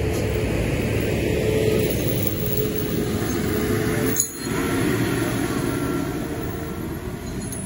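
Diesel engines of stopped heavy trucks running steadily at idle, with a brief drop in level about four seconds in.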